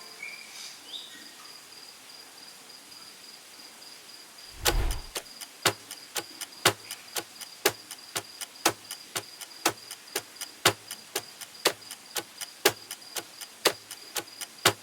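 Clock-style ticking, about two ticks a second alternating loud and soft, as used for a quiz countdown timer. It starts after a low thump about four and a half seconds in, over a faint steady high tone.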